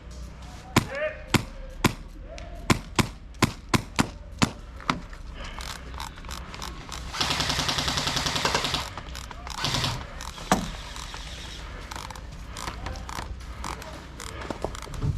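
Airsoft guns firing: about ten single shots in the first few seconds, then a rapid full-auto burst lasting about a second and a half, followed by scattered shots.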